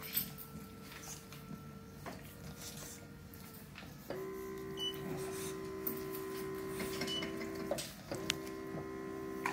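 RENPHO electric shiatsu foot massager running with feet in it: a faint steady motor hum that grows louder and fuller about four seconds in, stops briefly near eight seconds, then starts again.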